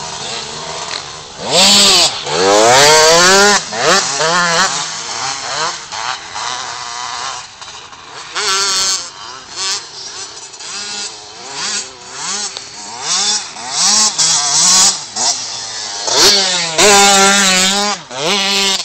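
KTM two-stroke dirt bikes revving hard, the engine pitch climbing and dropping again and again as the riders open and close the throttle. The loudest full-throttle runs come about two seconds in and again near the end.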